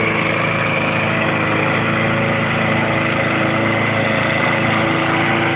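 Small petrol engine of a red walk-behind rotary lawn mower running steadily while mowing grass.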